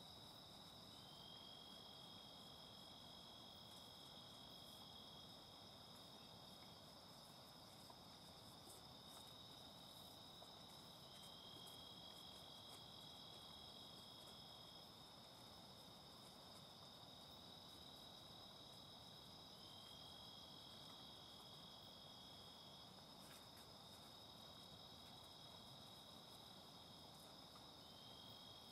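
Night insects trilling faintly: one steady high trill throughout, with several long, slightly lower trills that each start with a short rising slide and come in every few seconds.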